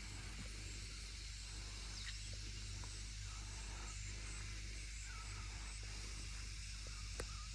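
Outdoor nature ambience: a steady high hiss with a few faint, short bird chirps scattered through it and a single sharp click near the end.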